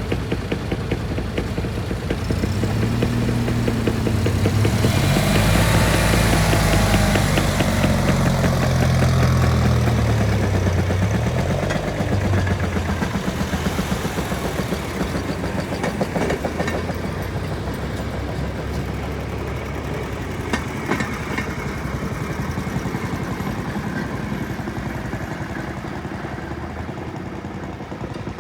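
Small engines of railroad speeder cars passing along the track, a fast steady putting whose pitch falls as they go by. Loudest about a quarter of the way in, then fading slowly.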